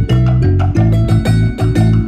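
Background music with a quick, steady percussive beat over a bass line.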